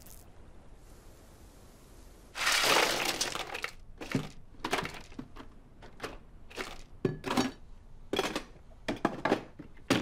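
Crushed ice crunching and rattling in a loud rush about two seconds in, followed by a string of short clinks and knocks as the ice and containers are handled.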